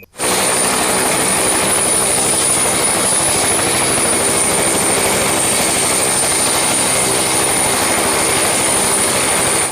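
Helicopter running steadily: a high, thin turbine whine over dense engine and rotor noise.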